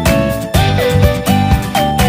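Background music with a steady beat and a melody that slides between notes.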